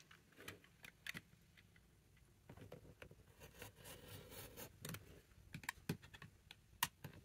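Faint, scattered small clicks with light scraping from a retractable box cutter being readied and set against a ruler on cereal-box cardboard.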